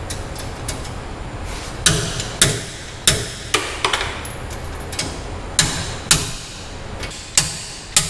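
About ten sharp metal-on-metal blows, roughly one every half second, from about two seconds in, each with a short ring. They come from hammering a bearing puller to drive a worn, gritty wheel bearing out of a truck's 9.25-inch Chrysler rear axle tube.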